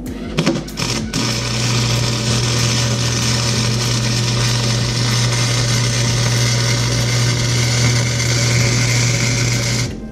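MIG welder arc running on a cracked exhaust header, a steady hiss over a low hum, after a few short crackles as the arc strikes; it stops abruptly near the end. The wire feed is turned down to lay a slow, hot bead that re-melts an older weld.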